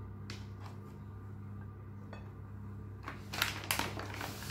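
Plastic packaging crinkling a few times about three seconds in as raw fish is handled, over a steady low hum.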